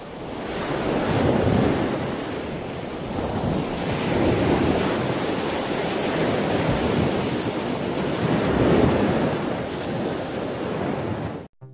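Ocean surf breaking and washing on the shore, swelling loudest about three times, with wind on the microphone. It cuts off suddenly near the end.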